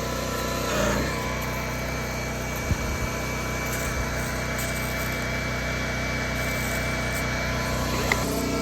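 Pressure washer's small gas engine running steadily, with a couple of brief knocks.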